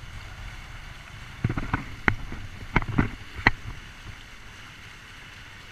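Steady wind and water noise aboard a sailing catamaran, with a run of about seven sharp knocks and clicks from about a second and a half to three and a half seconds in.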